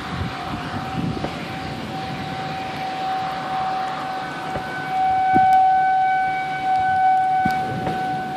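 Federal Signal 2001-130 outdoor warning siren sounding a steady single tone for a tornado warning. The tone swells louder about halfway through as the rotating siren swings toward the listener.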